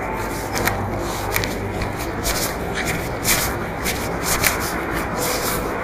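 Irregular rustling and rubbing noises, a string of short scrapes, over a steady low background rumble.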